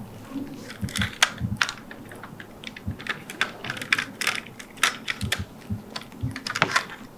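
Typewriter keys struck unevenly by a monkey: irregular clacks and knocks with no steady typing rhythm, a few strikes much louder than the rest.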